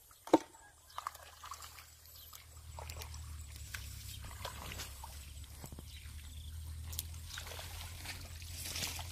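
Sloshing and splashing of shallow muddy water as people wade through it and feel in the mud with their hands, with scattered small splashes and clicks. A single sharp click comes just after the start, and a steady low rumble sits underneath from about two and a half seconds on.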